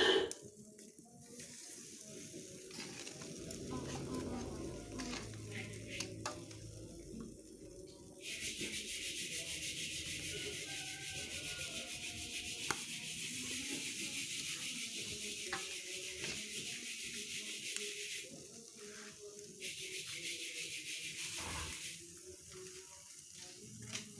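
Chicken sizzling on a grill over a wood-fired angklo clay brazier. A steady hiss sets in about eight seconds in, breaks off about ten seconds later and returns briefly. Before it there is soft rubbing with a few light knocks.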